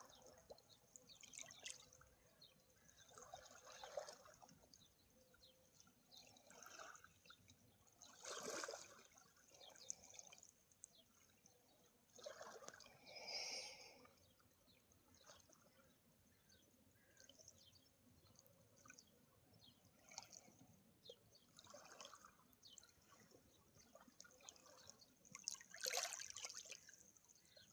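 Faint harbour water lapping, soft splashes coming irregularly every two to four seconds.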